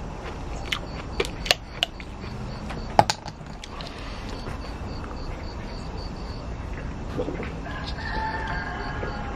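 A few sharp clicks and one louder crack about three seconds in, as a plastic soda bottle cap is twisted open. A rooster crows near the end.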